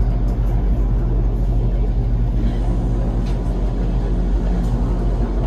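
Passenger train running, heard from inside the carriage: a steady low rumble with a few faint clicks.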